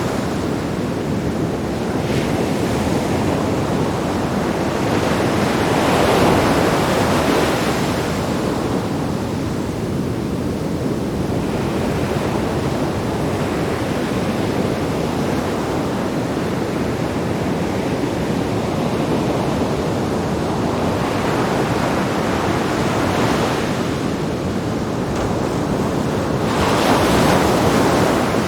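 Sea waves breaking on rocks: a continuous wash of surf that swells into louder crashes every several seconds, about four times, the biggest near the end.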